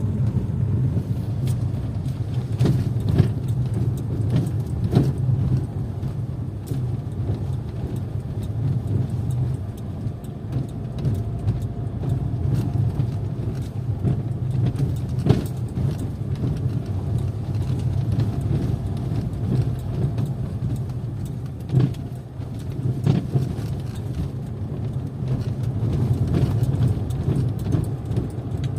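A car running with a steady low drone, and irregular sharp knocks scattered over it: the knocking noise the recording was made to capture.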